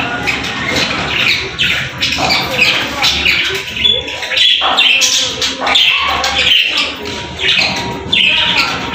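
Budgerigars chattering: a steady stream of quick, overlapping chirps, squawks and warbled notes with no pauses.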